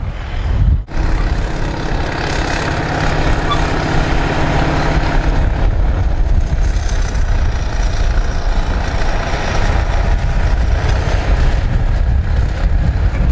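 Large articulated four-wheel-drive diesel tractor running steadily under load while pulling a multi-bottom moldboard plow. There is a brief dropout about a second in.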